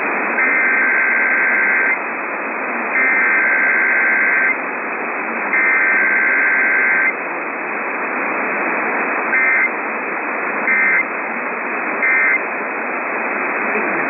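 Emergency Alert System digital (SAME) data bursts received over AM radio hiss: three warbling two-tone header bursts of about a second and a half each, then three short end-of-message bursts, the coded signal of a Required Weekly Test.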